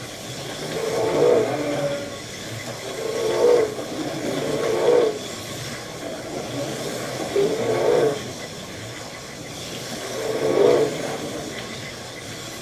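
HO-scale Thunderjet 500 slot cars racing around a track: the small electric motors whine over a steady hiss, the whine swelling and fading every couple of seconds as the cars come round and pass close by.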